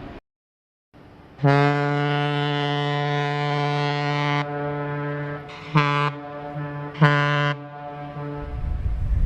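Great Lakes freighter's ship whistle sounding: one long deep blast of about three seconds, then two short blasts about a second apart. A low rumble comes in just before the sound cuts off.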